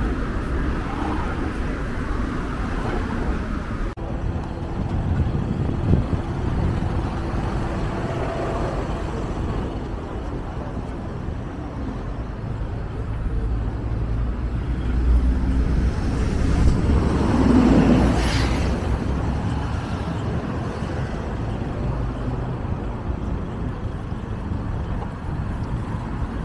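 City street traffic: cars running and passing, with a steady low rumble throughout. A city bus passes close by about two-thirds of the way in, the loudest moment.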